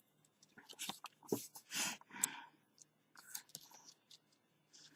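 Faint crinkling and rustling with small clicks, in short scattered bursts: thin adhesive gasket tape and its plastic liner being handled and pressed with the fingers.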